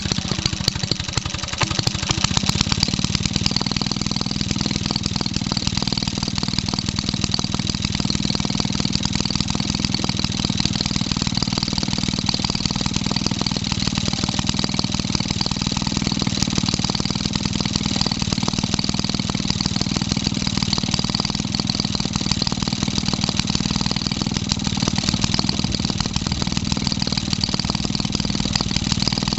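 1946 Maytag 72D twin-cylinder two-stroke engine running steadily just after being kick-started, held at an even speed by its governor.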